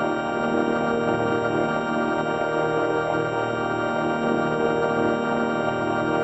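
4ormulator V1 vocoder effect producing a steady, buzzy electronic drone rich in overtones, sounding much like a held organ chord.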